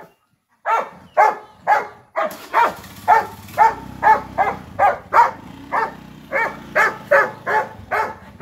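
A dog barking over and over, about two to three barks a second, at a motor scooter it wants to ride along on. From about two seconds in, the scooter's small engine runs with a steady low hum under the barking.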